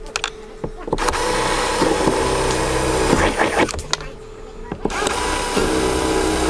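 Cordless drill boring holes through the side of a canoe hull: two runs of the motor's whine with the bit cutting, the first starting about a second in and stopping, the second starting about five seconds in.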